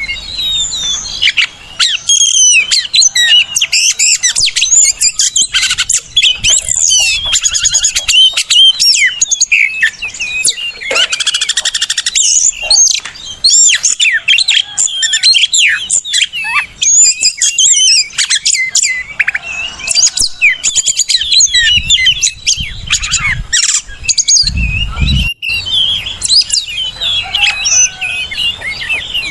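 Oriental magpie-robin (kacer) singing a rapid, varied stream of whistles and chirps without pause. A brief low thump comes near the end.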